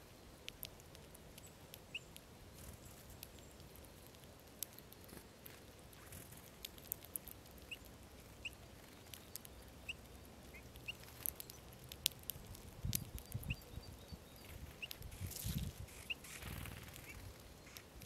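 Eurasian bullfinches pecking and cracking sunflower seeds on snow: many small, sharp, irregular clicks, with short soft high calls every second or two. A few soft low rustles come in the second half.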